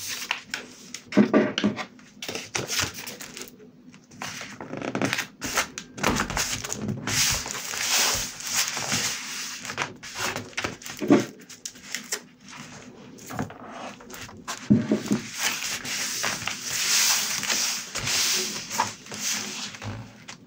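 Paper handled on a journal page: rustling and sliding paper with scattered taps and knocks, and two longer stretches of fingers rubbing a glued-down photo flat onto the page.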